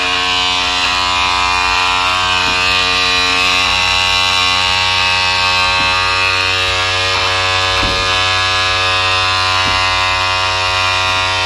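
Electric cab-tilt motor on an Isuzu truck running steadily under load as it raises the cab: a steady buzzing hum.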